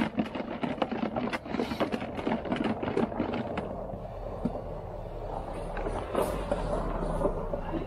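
Diesel fuel sloshing and rattling in a small plastic container as the tractor's fuel/water separator element is shaken hard in it to wash out dirt, several rapid strokes a second. About three and a half seconds in the shaking stops, giving way to quieter handling knocks as the container is set down and opened.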